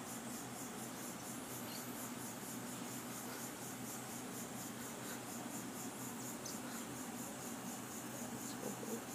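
Insects chirping in a high, rapid, evenly pulsing trill that runs on without a break, over a faint low hum.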